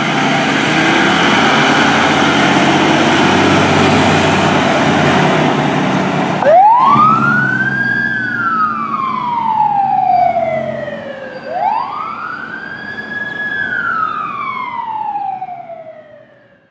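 A fire engine sounds a long, loud blast on its horn lasting about six seconds. Its electronic siren then wails twice, each cycle a quick rise and a slower fall, and fades away near the end.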